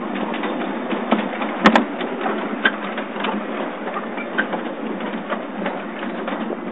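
Miniature railway ride-on wagons rolling along the track, a steady rattle with irregular wheel clicks over the rail joints and one sharp knock a little under two seconds in.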